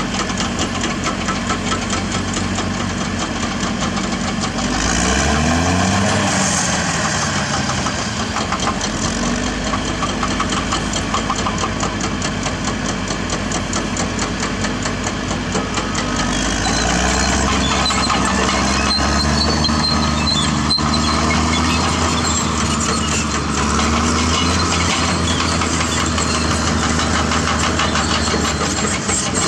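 Caterpillar D6R bulldozer's diesel engine running with a steady clatter, revving up about five seconds in and settling back, then revving up again about halfway through and holding the higher speed for most of the rest.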